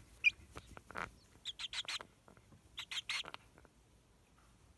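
A chick peeping: two quick runs of three short, high peeps, about a second and a half apart, with faint clicks in between.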